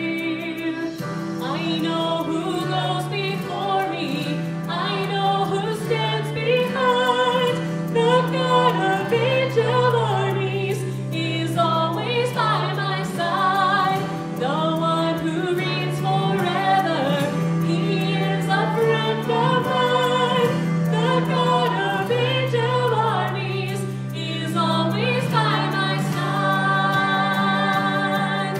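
A woman singing a contemporary worship song into a microphone, with musical accompaniment of sustained low chords that change every few seconds.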